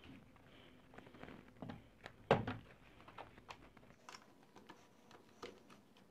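Scattered light plastic clicks and taps from handling a Dell QuietKey SK-8000 keyboard, with one louder knock a little over two seconds in.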